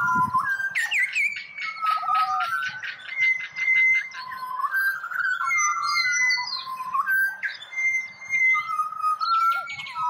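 Pied butcherbird song from young brown-and-white birds: clear whistled notes that slide up and down in pitch, broken by fast stuttering trills, sometimes two lines of notes at once.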